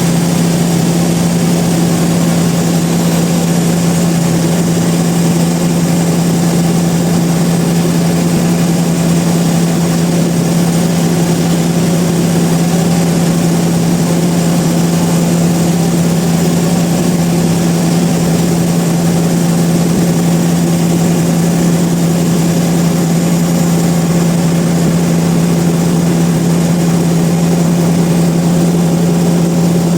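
Sawmill machinery running steadily: a constant loud drone with a strong low hum that holds one pitch throughout.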